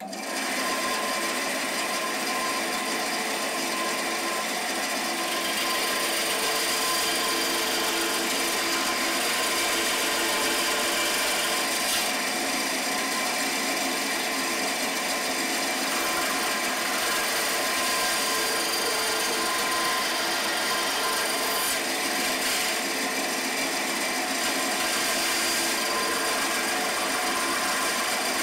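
Small bench-mounted bandsaw switched on, coming up to speed at once and running steadily with a constant motor hum, its blade cutting birch plywood as the tooth gaps of a wooden clock gear are cut by hand-feeding.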